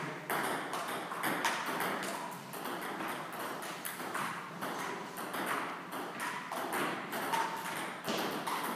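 Table tennis balls clicking against bats and table tops, many sharp pings at uneven intervals.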